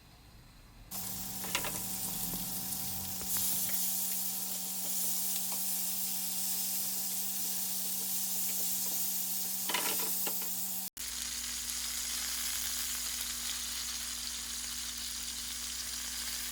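Spice-rubbed chicken drumsticks sizzling in hot olive oil in a pan, starting about a second in, with a few light knocks as the pieces are turned.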